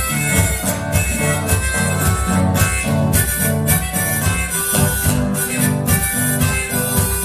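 Instrumental break of a polka played live: two acoustic guitars strumming and picking over percussion keeping a steady bouncing beat, with a held melody line on top.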